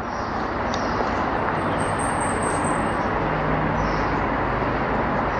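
A train going by: a steady rumble and rail noise that builds over the first second and then holds, with a low engine hum and a brief high whine about two seconds in.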